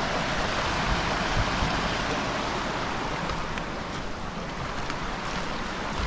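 Waterfall on a creek, a steady rush of falling water.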